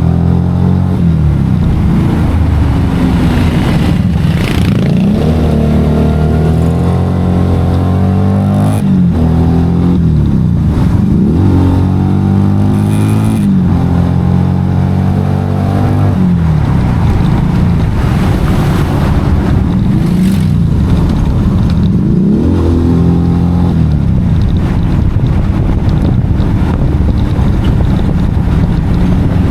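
Motorcycle engine running under way, its pitch climbing as it accelerates and dropping back at each gear change, over and over.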